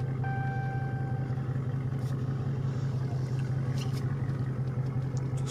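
Dodge Charger widebody's V8 engine idling steadily, a low even hum.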